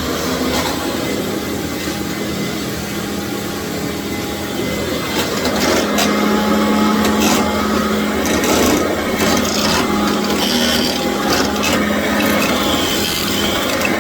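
Commercial vacuum cleaner running steadily on a tile floor, its motor holding a low hum that gets louder about six seconds in. The floor tool scrapes and rubs over the tile with scattered clicks.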